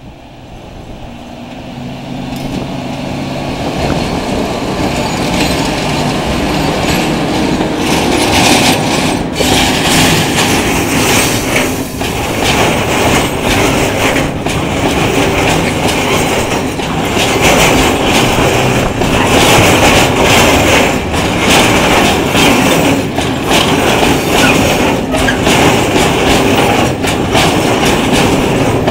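Freight train hauled by a Renfe class 251 electric locomotive approaches, growing louder over the first few seconds, then passes close by. Its wagons loaded with steel coils roll past with a repeated clickety-clack of wheels over the rail joints.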